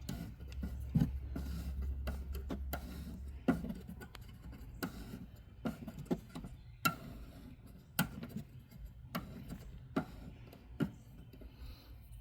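Sharp clicks, about one a second, from a plastic screw being tightened into a car's tail-lamp housing. A low rumble runs under the first three seconds or so.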